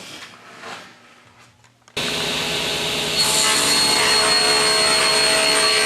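Electric power saw running and cutting wood, starting suddenly about two seconds in with a steady motor whine under the noise of the blade in the board.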